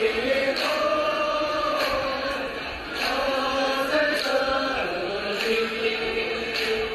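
A group of people singing together in unison, holding long drawn-out notes, with hand claps.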